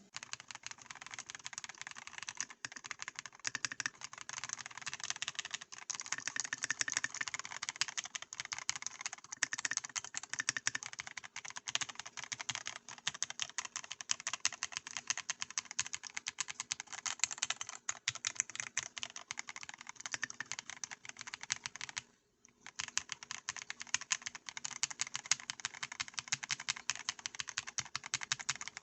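Fast, continuous typing on a KiiBOOM Phantom 68 mechanical keyboard, gasket-mounted with foam layers and with a transparent acrylic case, plate and keycaps: a dense clatter of keystrokes, with a brief pause about 22 seconds in.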